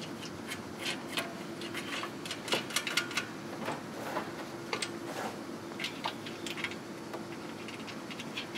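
Light, irregular metallic clicks and clinks of stainless-steel exhaust flanges and small hardware being handled and fitted together by hand, over a faint steady hum.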